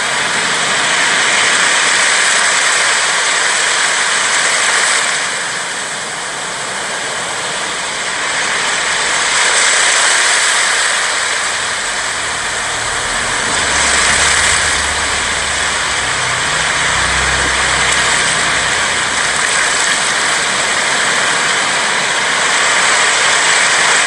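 Sea waves washing onto a sandy beach: a steady rush of surf that swells and eases every few seconds.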